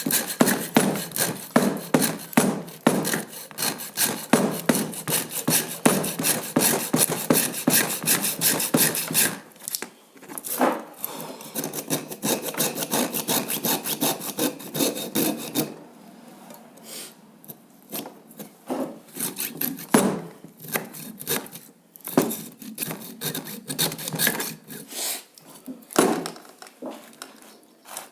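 Hacksaw blade sawing into a microwave oven transformer to cut away its damaged secondary coil. Rapid, even strokes for about nine seconds, then slower, intermittent strokes with quieter pauses.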